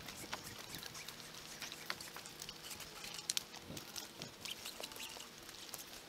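Faint rustling and scattered light clicks from a tree climber's gear and rope, close to the camera up in the tree.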